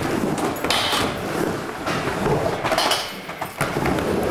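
Skateboard wheels rolling across an indoor wooden ramp, a steady rumble that swells now and then as the board moves over the transitions.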